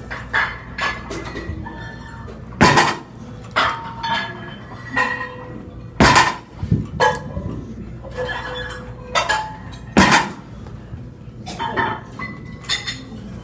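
Iron weight plates on a Rolling Thunder lifting handle's loading pin clanking and clinking as the loaded pin is lifted and set back down on the plates, with three loud clanks about two and a half, six and ten seconds in, and lighter metal clinks and brief ringing between them.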